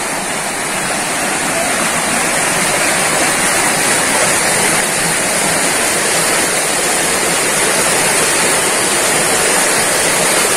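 Shallow rocky creek rushing over stones and small rapids, a steady, unbroken sound of flowing water.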